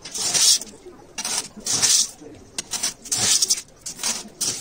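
Handfuls of gravel chips dropped and spread by hand into a dry glass aquarium, the stones rattling against each other and the glass in short bursts, about one a second.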